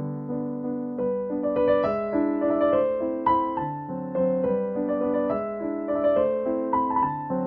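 Background piano music: a gentle melody of single notes over lower held chords, with a new note every half second or so.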